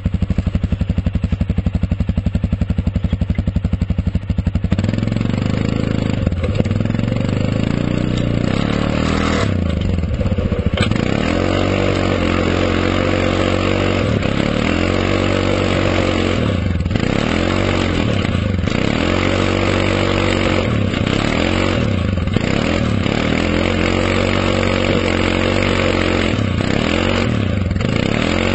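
2011 Suzuki King Quad 750 ATV's single-cylinder engine idling with a steady pulsing beat, then revving up about five seconds in and running hard. Its pitch rises and falls over and over, every second or two, as the throttle is worked and the wheels spin in mud.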